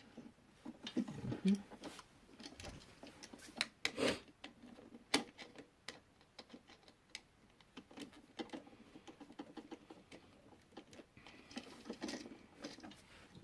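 Irregular small clicks, taps and rustles of pliers and copper wire being handled as an outlet's neutral wire is bent into a loop for its terminal screw. A few sharper clicks come about four and five seconds in.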